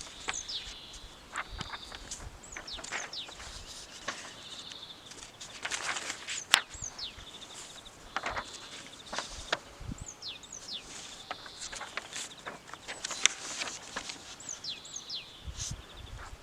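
Songbirds singing, with repeated quick falling whistles and warbling phrases. Scattered clicks and knocks are heard under the birdsong, the sharpest about six and a half seconds in.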